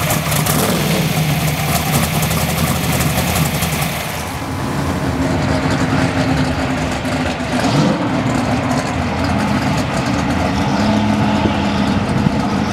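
Twin-turbo, alcohol-injected V8 of a Pro Mod '70½ Camaro idling with a rough, crackly exhaust. About four seconds in the sound changes to a smoother, lower idle as the car rolls, with a short rise in revs a little later.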